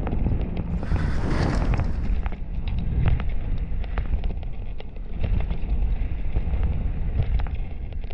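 Mountain bike riding fast down a dirt-and-gravel trail: wind rushing over the camera microphone, tyres rolling on loose stones and the bike rattling with many sharp clicks. A brief louder hiss comes about a second in.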